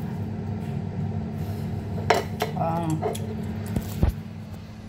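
A fork and knife clinking and scraping against a ceramic plate a few times, over a steady low hum. A heavy low thump comes about four seconds in as the camera is handled.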